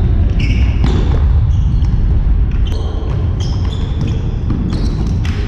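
Indoor futsal play: short squeaks of players' shoes on the wooden hall floor and knocks of the ball being kicked, over a steady low rumble of the hall.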